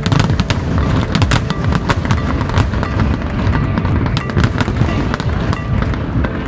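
Fireworks going off in quick succession: a dense run of sharp bangs and crackles over a low rumble, with music playing underneath.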